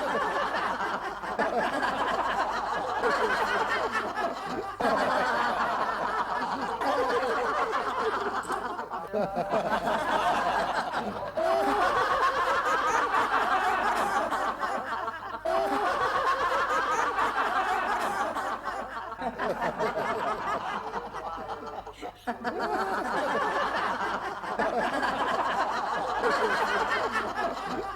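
Human laughter, a long run of snickering and chuckling, with short dips every few seconds.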